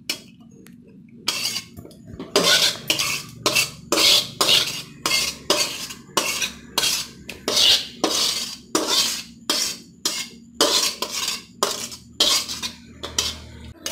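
Flat metal spatula scraping the inside of a metal wok in short repeated strokes, about one and a half to two a second, starting a little over a second in, as the last of a cooked tomato-onion masala is scraped out into a bowl.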